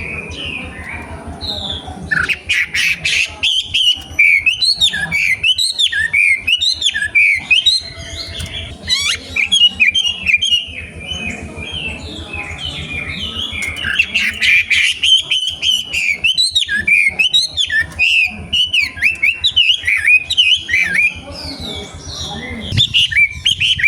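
Young wild-caught wambi singing: rapid, busy runs of short, high chirps that pause briefly about halfway through and again near the end, over a steady low hum.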